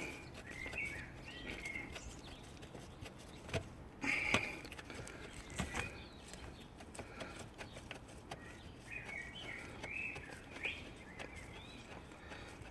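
Birds chirping in the background in short warbling phrases, with a few sharp metallic clicks from a wrench working a crusty thermostat housing bolt loose.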